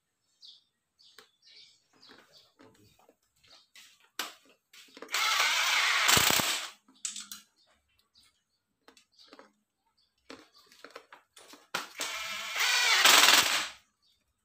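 Cordless impact wrench hammering the cylinder head bolts down on a diesel engine during reassembly, in two bursts of about one and a half to two seconds each, about five and twelve seconds in. Light clicks and clinks of bolts being handled come between them.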